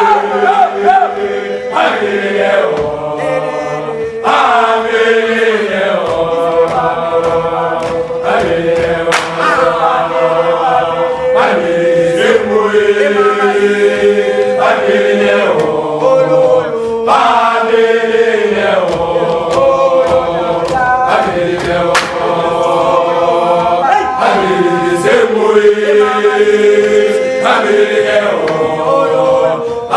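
Voices singing a chant-like song in isZulu, with long held notes.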